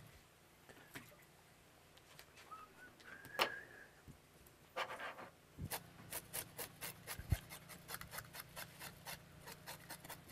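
Scales being scraped off whole sand whiting: a run of short, quick scraping strokes, about four a second, through the second half. Before it there is a brief squeak about three seconds in.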